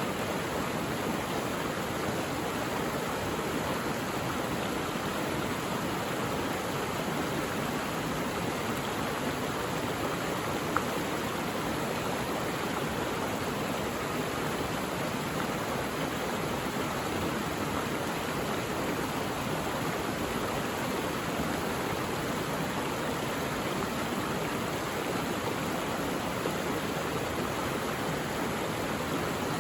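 Mountain valley stream flowing over rocks: a steady, even rush of water. One brief sharp blip stands out about eleven seconds in.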